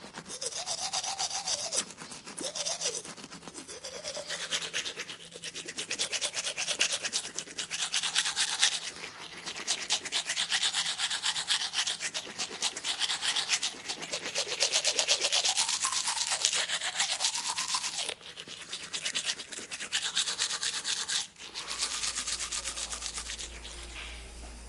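Fast scrubbing, rasping noise in several stretches that swell and break, like a brush or tool scraping against a hard surface; it stops abruptly about 21 seconds in, leaving a steady low hum.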